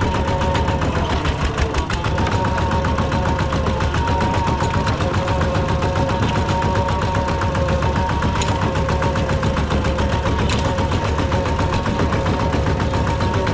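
Rice combine harvester running steadily: an engine with a fast, even clatter and a constant whine over it.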